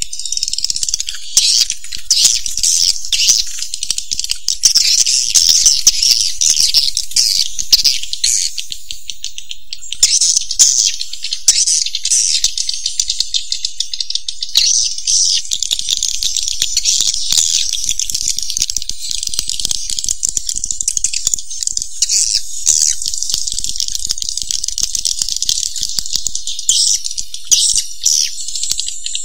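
Swiftlets chattering without a break: dense, high-pitched twittering chirps run together with fast clicky, buzzy rattles. This is the kind of swiftlet call recording played to lure swiftlets into a nest house.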